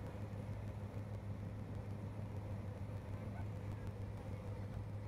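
Steady low drone of an aircraft in flight heard from inside the cabin: engine and airflow noise with a constant low hum.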